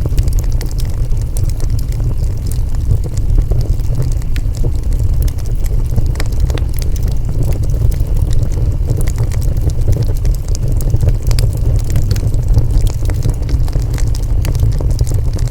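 Wood fire burning: a steady low roar with frequent small, sharp crackles and pops scattered throughout.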